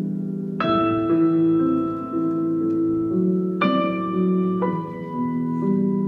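Slow instrumental music: low notes held steadily under bright chords that are struck and left ringing, about half a second in, then near three and a half and four and a half seconds.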